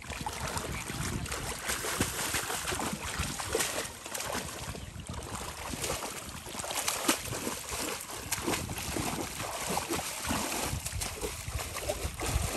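Water sloshing and splashing, with many irregular small knocks and rustles.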